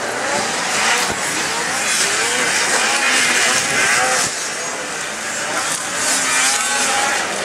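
Several racing snowmobiles' two-stroke engines revving together, their pitches rising and falling as the sleds jump and accelerate around the track.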